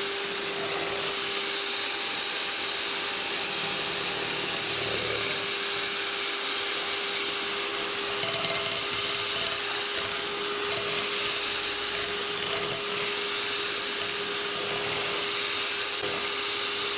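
Electric hand mixer running steadily at a constant pitch, its beaters whisking cake batter in a glass bowl.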